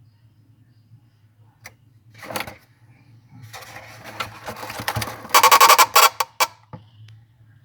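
Freezer fan of a GE frost-free refrigerator scraping and rattling against ice built up from the evaporator coil, over a low steady hum. The noise builds from about halfway in into a loud rapid rattle that stops suddenly: the sign of ice reaching the fan blades.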